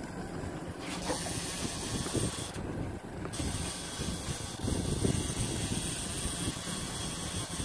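Trolling reel being cranked to bring in a hooked fish, its gears making a ratcheting clicking, over a steady hiss and low rumble of wind and water on the open boat.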